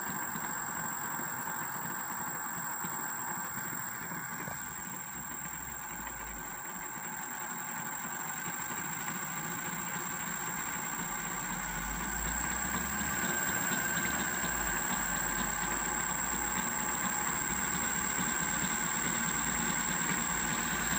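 3D-printed motor/generator running with a steady mechanical hum and a thin high whine. It gets louder about halfway through as it speeds up, and the LED it powers brightens.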